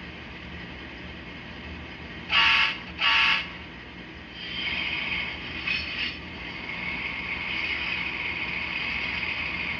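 Sound-equipped model Union Pacific gas-turbine locomotive sounding two short horn blasts, the usual signal that a train is about to move off. Its turbine sound then swells into a steady rushing whine as it starts to pull.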